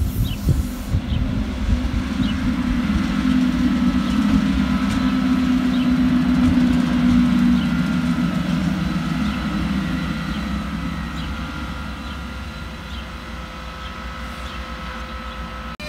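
A Siemens ES64F4 (Class 189) electric locomotive running light past at low speed. Its steady hum, with a faint higher tone above it, grows to its loudest about halfway through and then fades as it moves away. Small clicks come at an even pace, with low rumble underneath.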